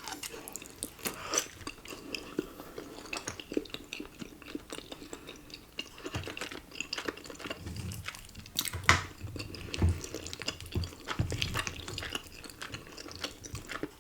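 Close-miked chewing of cheesy ramen noodles and chewy rice cakes: many small wet smacks and clicks of the mouth, with a louder click about nine seconds in.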